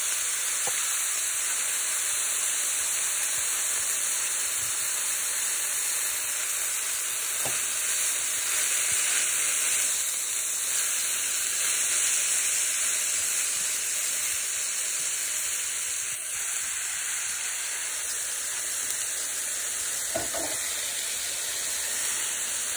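Kelp noodles stir-frying in a hot pan: a steady sizzle while they are turned with a silicone spoon, with a couple of faint taps.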